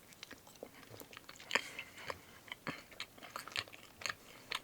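Close-miked chewing of a soft candy made of fruit gum, licorice, white chocolate and marshmallow: wet mouth clicks and smacks at an irregular pace, the loudest about a second and a half in.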